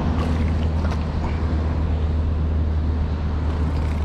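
Steady low rumble with an even hiss over it: outdoor background noise, with no clear single event standing out.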